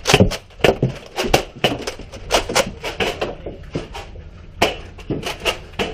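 A rapid, irregular run of sharp clicks and knocks from a Nerf fight: foam-dart blasters firing and darts smacking walls and furniture.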